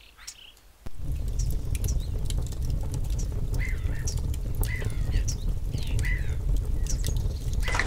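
Birds calling and chirping outdoors, with a short call repeating about once a second. About a second in, a steady low rumble starts beneath them, with light scattered clicks.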